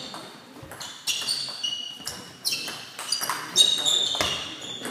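Table tennis rally: the ball clicking sharply off the rackets and the table in quick succession, echoing in the hall.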